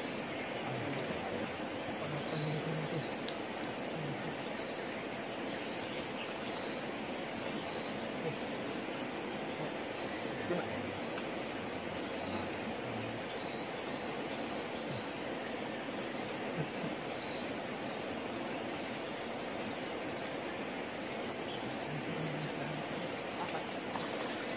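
Steady high-pitched insect chorus from the riverside vegetation, with short high chirps repeating about once a second over it.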